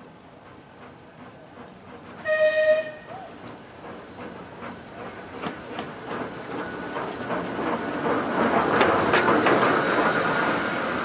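BR Class 08 diesel shunter No. 13101 sounds one short horn blast, then its English Electric six-cylinder engine and wheels get louder as it runs past close by, with rail-joint clicks. The passing sound is loudest about nine seconds in.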